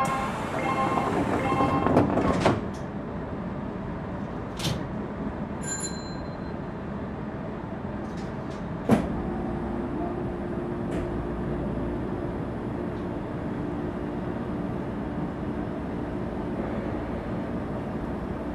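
Semboku Rapid Railway electric train at a station platform: a chime ends, the sliding doors shut with a loud clatter about two seconds in, and a single sharp clunk comes about nine seconds in. After the clunk a steady low hum sets in as the train gets ready to pull away.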